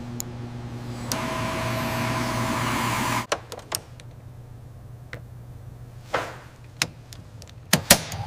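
A steady electric machine hum that cuts off suddenly after about three seconds. It is followed by a scatter of sharp clicks and taps, and near the end a quick double click as a switch on an aircraft instrument panel is pressed.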